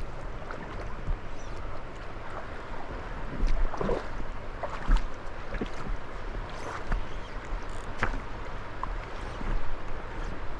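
River water running steadily, with a low rumble of wind on the microphone and scattered small knocks and clicks.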